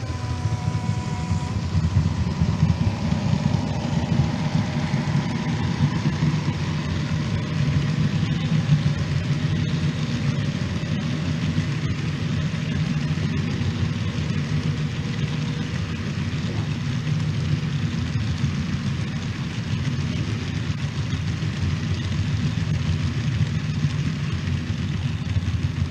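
OO gauge model freight train of container wagons running past on the layout: a steady rumble of wheels on the rails with an engine-like drone.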